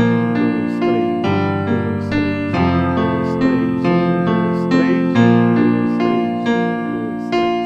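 Electronic keyboard on a piano sound playing an arpeggiated fingerpicking pattern in groups of three. The left hand holds open fifths in the bass, moving between B-flat and F, while the right hand picks out the chord notes one at a time.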